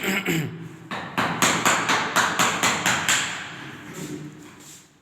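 Rapid hammering, about four strikes a second, with a short pause about a second in, growing fainter near the end.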